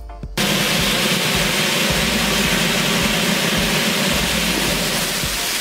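Fountain firework (a large clay-pot anar) spraying sparks with a loud, steady hiss that starts abruptly about half a second in.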